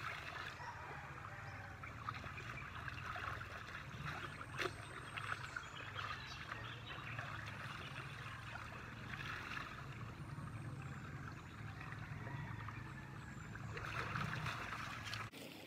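Shallow river flowing over stones, with water splashing and pouring as it is scooped by hand. Near the end come footsteps splashing through the shallow water.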